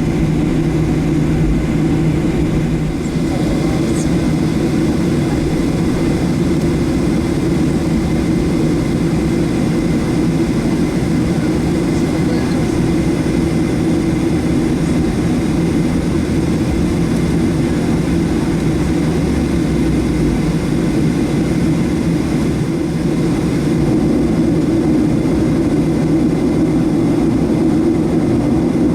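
Steady jet engine noise and cabin hum heard from inside a Boeing 737-700's cabin, its CFM56-7B turbofans running as the plane gets under way for departure.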